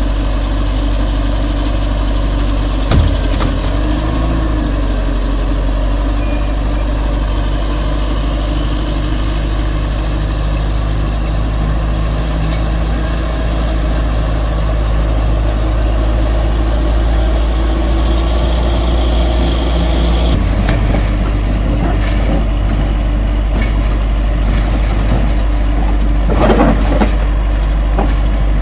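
Heavy earthmoving machine's engine running steadily, with a sharp knock about three seconds in and a change in the engine sound about twenty seconds in. Near the end there is a brief screech.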